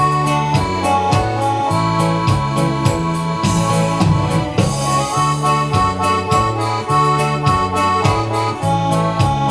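Electronic keyboard playing a guarânia medley: a sustained melody over a stepping bass line and a steady accompaniment beat.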